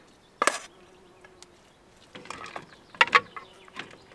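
A metal spoon scraping and clinking against a metal pot as food is spooned out into a bowl, in a few separate strokes with the loudest pair about three seconds in. A faint steady buzz runs for about a second near the start.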